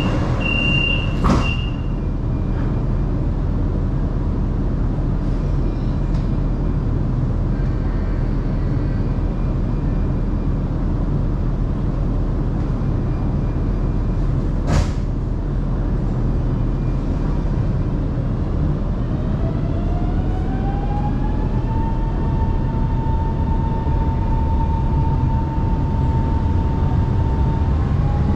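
Shanghai Metro Line 2 train: a high door-warning beeping stops about two seconds in, with a sharp knock just before it ends, and then the train runs with a steady rumble. There is another sharp knock about halfway through, and near the end a motor whine rises in pitch and then holds steady as the train picks up speed.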